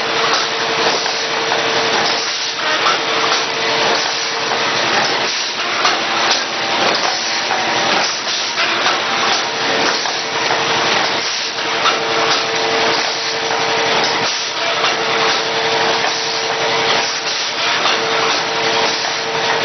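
Face mask production machine running: a dense, continuous clatter of pneumatic cylinders and moving parts with the hiss of compressed air, over a hum that comes and goes.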